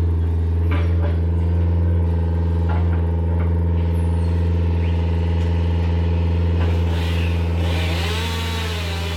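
An engine running steadily with a low hum, with a few short knocks in the first few seconds; from about seven seconds in, a rushing noise and wavering higher tones join it.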